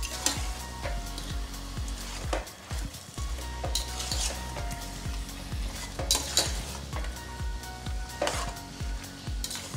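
Metal ladle stirring chicken pieces in masala in a stainless steel pot, knocking and scraping against the pot's sides and bottom over the sizzle of frying, with a few louder scrapes. A steady low hum runs underneath.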